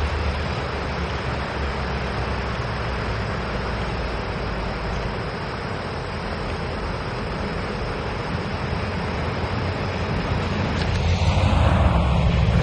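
Taiwan Railway diesel-electric locomotive R158 running as it hauls a container freight train into the station, a steady low engine hum with rail noise. It grows louder near the end as the locomotive draws close.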